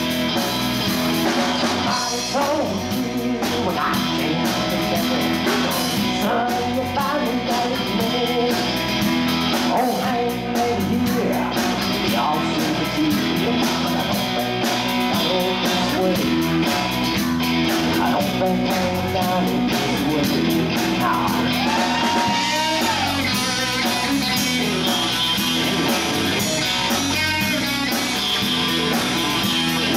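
A live band playing loudly and steadily: electric guitar, electric bass and drum kit.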